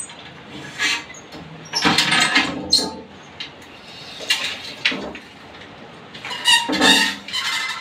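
Scrapes, knocks and short squeaks of a large glazed ceramic tile being shifted on a concrete ledge and marked with a pen.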